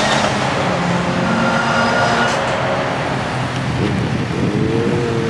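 Car engines running in traffic, a steady mix of motor and road noise.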